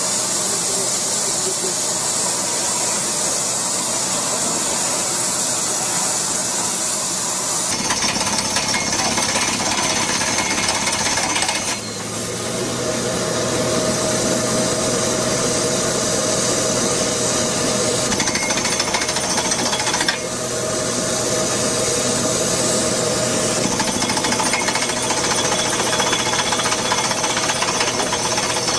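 Well-drilling rig boring into the ground: the spinning drill rod hammers steadily while air blows cuttings and dust out around the hole, making a loud, continuous rattling noise with a steady hum underneath. The sound changes abruptly in tone a few times.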